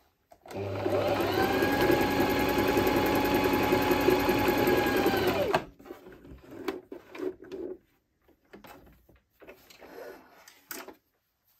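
Silvercrest domestic sewing machine running up to speed and stitching fabric steadily for about five seconds, then slowing to a stop. After it, faint rustles and clicks as the fabric is handled and pulled out from under the presser foot.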